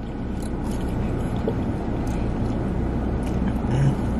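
Steady low hum and rushing noise inside a parked car, with a few faint light clicks over it.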